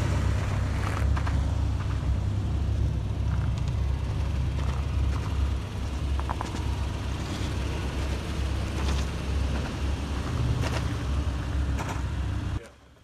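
Off-road vehicle crawling slowly along a rocky gravel shelf road: a steady low rumble of engine and drivetrain, with scattered crunches and pops from the tyres rolling over loose stones. It cuts off suddenly near the end.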